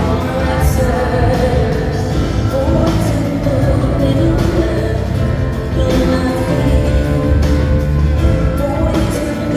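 Live concert music: a woman singing over a band with drums and heavy bass.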